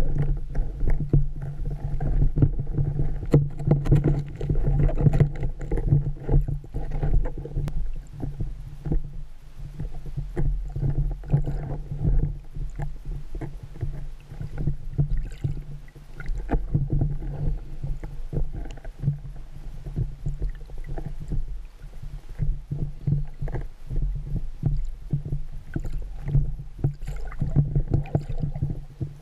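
Muffled underwater noise through a camera housing: a scuba diver's regulator breathing and exhaled bubbles, swelling and fading in long cycles with small crackles through it.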